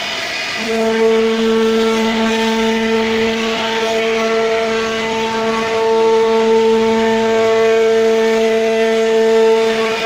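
CNC router spindle cutting a carved relief into a solid-wood door panel: a steady pitched whine that comes in strongly about half a second in and holds an even pitch, over the rough noise of the bit cutting the wood.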